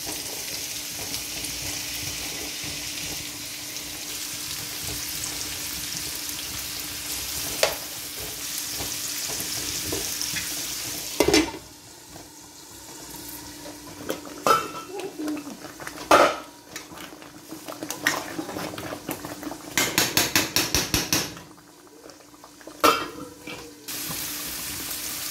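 Sliced red onions sizzling in oil in a nonstick frying pan, with a steady hiss; about halfway a sharp clank as a glass lid goes on, after which the sizzle is much quieter. Scattered knocks of pan and utensils follow, with a quick run of rattling taps near the end.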